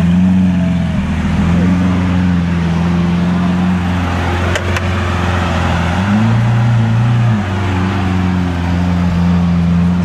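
Lamborghini Aventador's V12 idling with a steady low hum, the note rising briefly about six seconds in. A single sharp click comes about halfway through.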